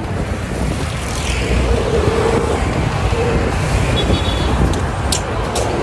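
Road traffic passing close by: motor scooters and cars going past in a steady rush of engine and tyre noise. A few sharp clicks near the end.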